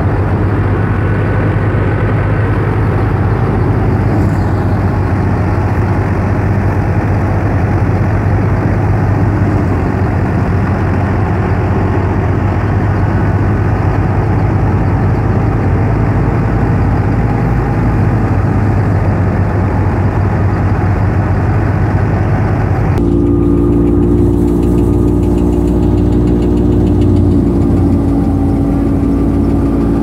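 Tractor-powered wheat thresher running steadily as wheat sheaves are fed in: the tractor engine and the thresher make one loud, continuous mechanical din. About 23 seconds in the sound changes abruptly to a smoother hum with a few steady tones.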